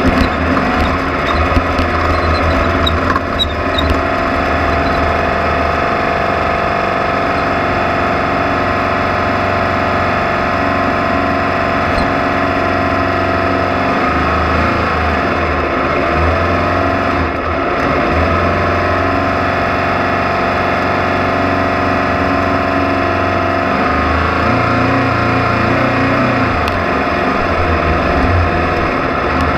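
Race vehicle's engine running continuously under load, its pitch falling and rising again a few times as the driver comes off and back on the throttle, over a heavy low rumble.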